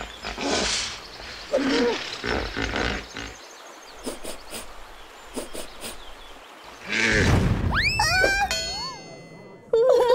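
Animal calls: a series of rough, noisy calls, the loudest about seven seconds in, followed by a rising, wavering pitched call.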